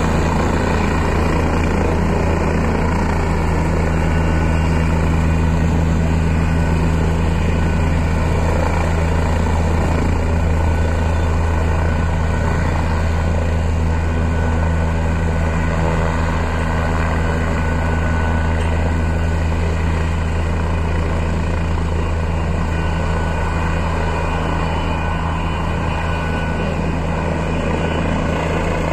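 Helicopter running on the ground with its rotor turning as it taxis across the apron: a steady, loud hum of rotor and turbine engines.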